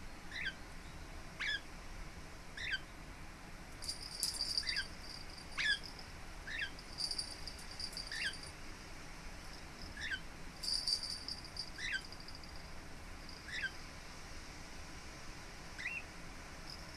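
Lineolated parakeet giving short, quick chirping calls, about one every second or two. Three times a higher, scratchy sound lasting about a second comes between the calls.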